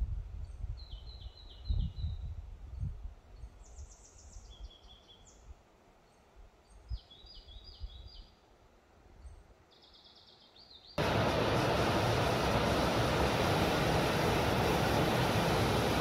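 Small songbirds singing repeated short, high trilled phrases, with a few low thumps early on. About eleven seconds in it cuts abruptly to a small waterfall pouring into a pool: a loud, steady rush of water.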